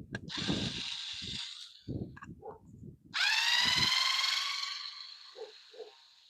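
Ironmark lithium cordless screwdriver's small motor whirring in short runs. One brief run comes about half a second in. A louder one starts suddenly about three seconds in, rises a little in pitch, then fades. Knocks and clatter of handling sound in between.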